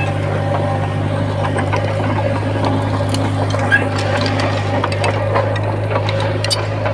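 Komatsu bulldozer's diesel engine running steadily, with scattered metallic clanks and rattles from the machine.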